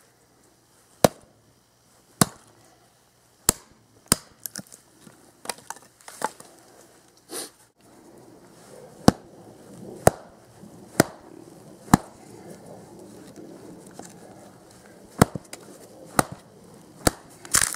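Cold Steel Trail Hawk tomahawk chopping and splitting small pieces of dead wood: a string of sharp wooden chops, roughly one a second, with two pauses of a few seconds between runs of strokes.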